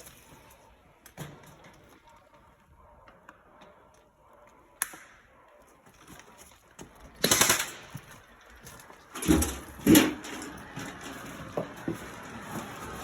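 Airsoft replica firing: a short burst just past the middle, then two more shots or short bursts a couple of seconds later, with a few sharp clicks in the quiet stretch before.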